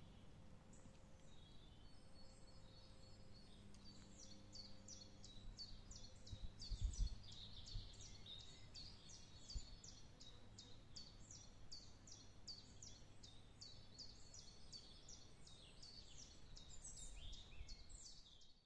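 Faint birdsong in a spring forest: a high, quick note repeated over and over, about three a second, starting about four seconds in. A brief low rumble comes about seven seconds in.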